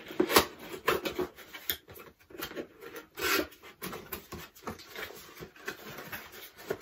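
Cardboard product box being opened by hand: flaps pulled back and the inner cardboard insert worked out, a run of irregular rubs, scrapes and sharp taps.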